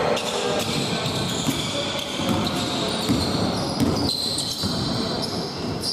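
Basketball game court noise: a ball bouncing amid many short sharp knocks and squeaks from play on the court.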